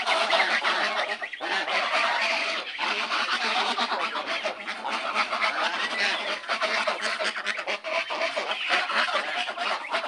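A flock of domestic geese honking, many calls overlapping with hardly a break, dipping briefly about one and a half and three seconds in.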